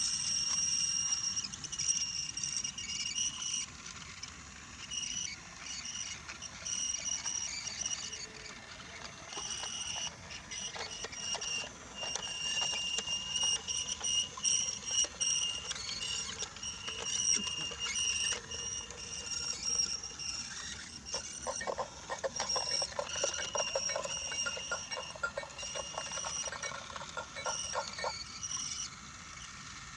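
Battery-powered Brio wooden toy train's small electric motor whining with a high steady pitch as the locomotive runs along wooden track. From about 21 to 28 seconds in, a quick run of rattling clicks from the wheels over the wooden rails.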